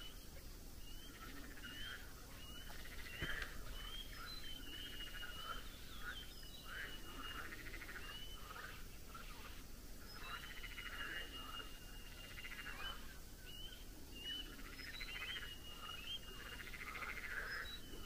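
Evening chorus of birds singing: a steady stream of high whistled notes, short glides and held tones overlapping rattling trills, the trills fuller about halfway through and again near the end.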